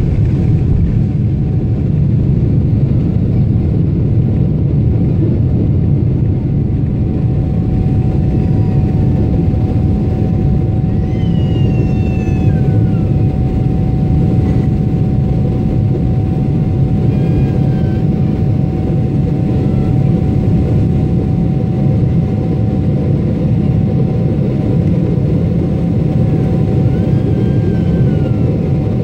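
Airliner jet engines at takeoff power, heard inside the cabin as a loud, steady rumble with a constant whine held at one pitch, through the takeoff roll and climb-out.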